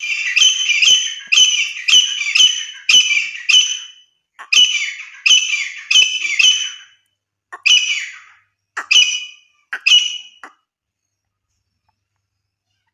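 Grey francolin calling: loud, shrill call notes repeated in quick runs, then a few spaced notes, stopping a little before the end.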